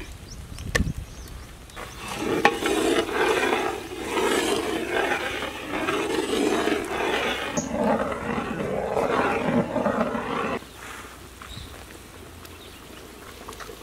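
Liquid poured into a large pot of hot oil and ground spices, sizzling loudly as it hits the fat, then cutting off suddenly about ten seconds in. A softer steady bubbling of the curry follows.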